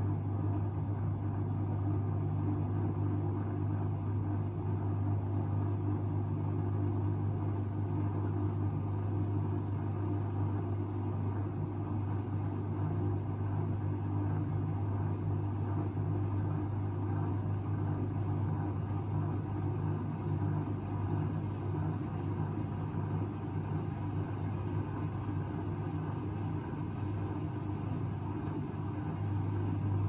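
Bauknecht WAP9988 front-loading washing machine's drum motor running steadily, tumbling a wet, sudsy load of laundry during the wash phase: a steady low hum with the swish of the load.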